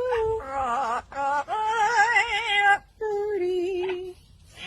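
A dog howling in a run of long, wavering, sung-like notes with short breaks between them.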